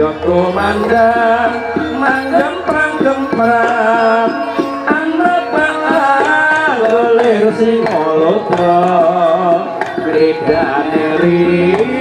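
Live jaranan music: hand drums beating a steady, fast rhythm under a wavering, ornamented melody line.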